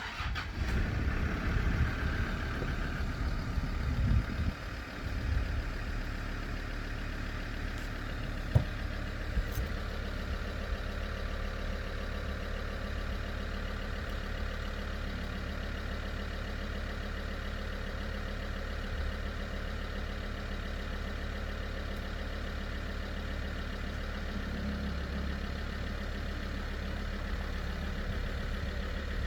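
Land Rover Discovery 2 engine starting up, running unevenly for a few seconds, then settling into a steady idle. A sharp click comes about eight seconds in.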